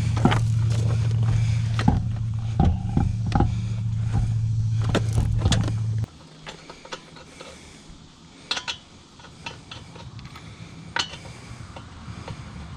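A steady machine hum with clanks and knocks of wheel work over it; the hum cuts off abruptly about halfway through. After that come scattered metallic clicks and clanks.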